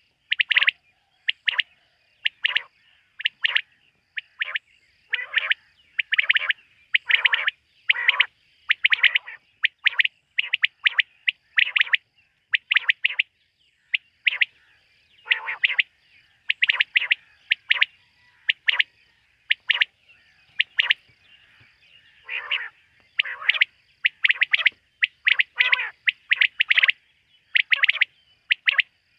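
Quail calling at night: short sharp notes in quick groups, repeated over and over with brief pauses between groups.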